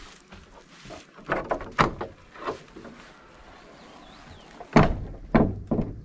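Old wooden plank door being unlatched and forced open: metal hasp and pin clattering, then several heavy wooden knocks and thuds, the loudest about five seconds in.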